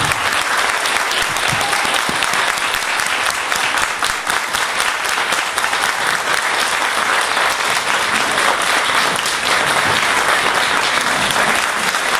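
A small audience clapping steadily in a room, dense hand claps that run on without a break.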